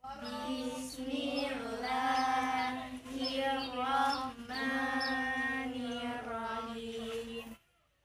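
Children chanting a prayer together in a sing-song melody on a steady, held pitch. The chant stops a little before the end.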